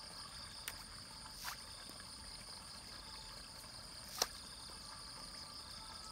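Fish taking food at the pond surface, making three small splashes or pops, the sharpest about four seconds in, over a steady high-pitched insect drone.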